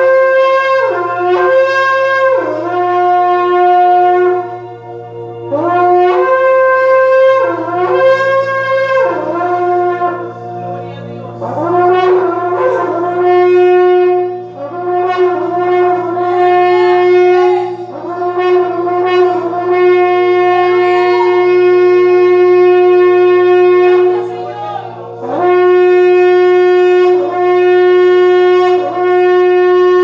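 A long, twisted horn shofar blown in a series of calls: short blasts that step up between two or three notes, then a wavering, warbling stretch, then long held notes broken by brief dips.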